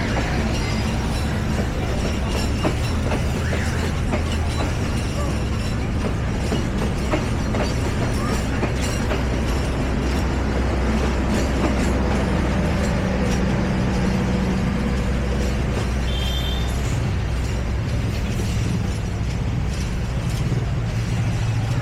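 A long KAI passenger train rolling past: a steady rumble of wheels on the rails with scattered clicks from the track and a low hum underneath.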